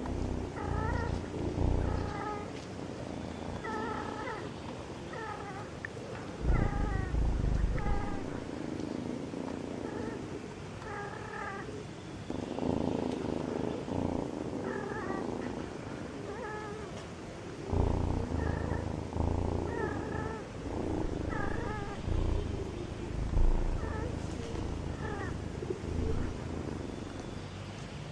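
Cats calling during mating: a run of short, repeated meow-like calls every second or so, with a low rumble in stretches. A few low thumps stand out as the loudest sounds.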